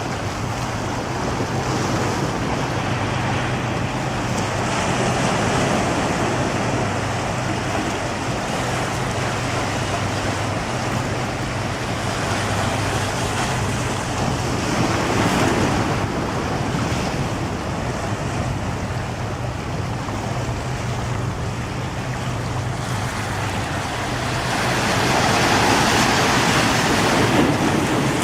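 Ocean surf breaking on a beach, a continuous wash of waves that swells louder about halfway through and again near the end.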